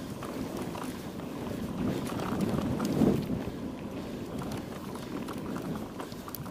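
Wind rushing over the microphone of a moving mountain bike, with the rattle and light clicks of the bike going over rough ground; the loudest rush comes about three seconds in.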